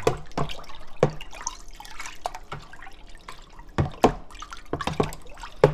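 Soy-sauce pickling brine being stirred by hand in a plastic tub, sloshing and splashing irregularly, with sharper splashes about a second in, near the middle and at the end.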